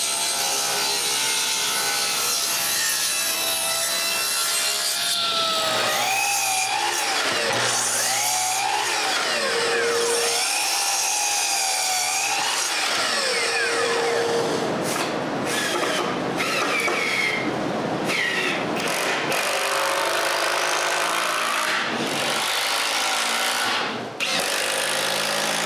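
Power saw cutting wood, running steadily, with its pitch dipping and rising as the blade loads up in the cut.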